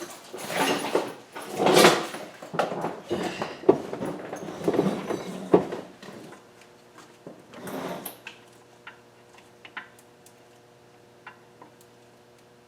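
Hands rummaging through and handling tools and parts: rustling and clattering with sharp clicks for about six seconds, a shorter rattle about eight seconds in, then a few light clicks over a faint steady hum.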